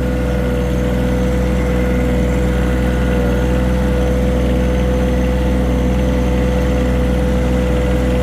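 John Deere 1023E compact tractor's three-cylinder diesel engine running steadily, with a constant whine over the engine note.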